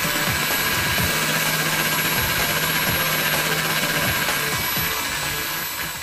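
Electric angle grinder running steadily with a red polishing wheel pressed against bronze, buffing the metal to a shine. The sound fades out near the end.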